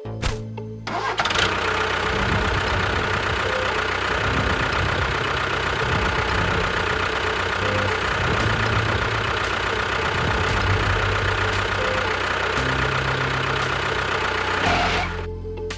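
A motor running steadily at an even pitch. It starts abruptly about a second in and cuts off abruptly near the end.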